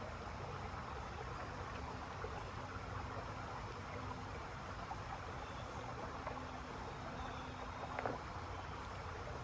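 Steady rain falling, an even hiss with no breaks, with a faint low hum under it and a single short click about eight seconds in.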